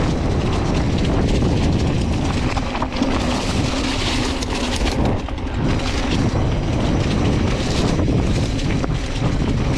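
Mountain bike rolling fast down a dirt flow trail: tyres on packed dirt and dry leaves and the bike rattling over the bumps, with wind buffeting the camera microphone.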